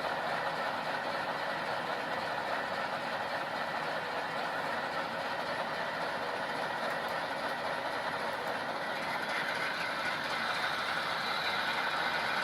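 Diesel locomotive prime-mover sound from HO-scale model locomotives' DCC sound decoders played through small speakers, run up in notch. The MTH C44-9W (Dash 9) on TCS speakers stands out over the faint ZIMO-speaker ES44AC GEVOs. A steady, thin engine sound with little deep bass, growing a little louder and brighter about nine seconds in.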